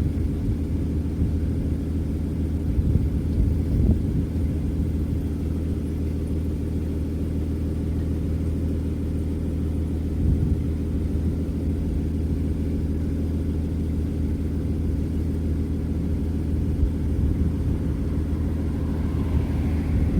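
Steady low rumble of a motor vehicle's engine running near the road, with no change in pitch.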